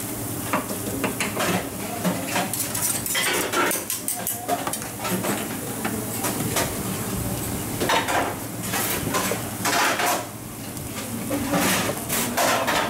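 Metal spatula scraping and clicking against a hot flat steel dosa griddle as toppings are spread and mashed over dosas, with the dosas sizzling and a steady low hum underneath.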